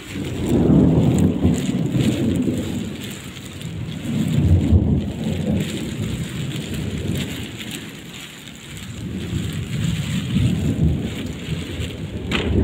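Heavy rain falling steadily, with rolling thunder that swells and fades three times, and a sharp click near the end.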